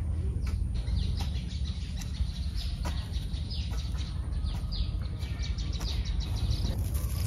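A flock of ducklings peeping: many short, high, downward-sliding peeps overlapping in quick succession, over a steady low rumble.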